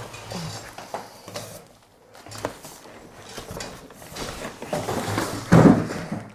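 Cardboard and foam packaging rustling and scraping as a large wrapped e-bike is hauled up out of its shipping box, with a louder scrape about five and a half seconds in.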